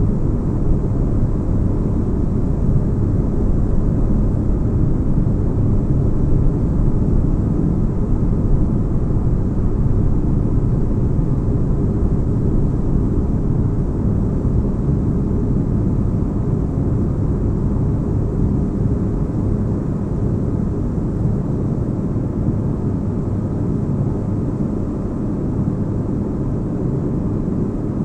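Spaceship-interior sleep ambience: a steady, deep rumbling drone of low noise, like a ship's engines heard from inside, with no distinct events.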